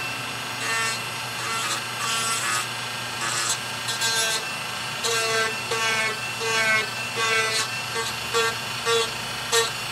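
Dremel rotary tool with a small bit running at a steady high whine, grinding wood in short, repeated gentle passes to remove a seam line.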